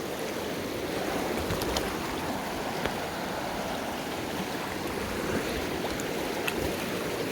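Fast-flowing water of the Soča river rushing steadily, an even wash with a few faint ticks.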